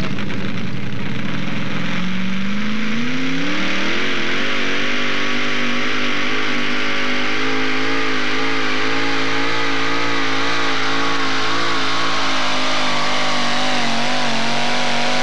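Supercharged engine of a modified four-wheel-drive pulling truck revving up about two seconds in, then held at high revs under load as it pulls the weight-transfer sled, its pitch wavering slightly.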